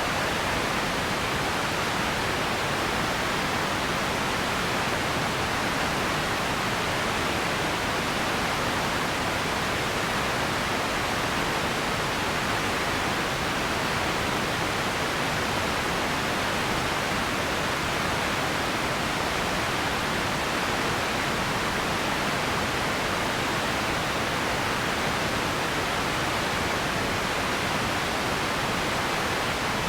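Radio static: a steady, unbroken hiss of noise, constant in level and fullest in the mid range.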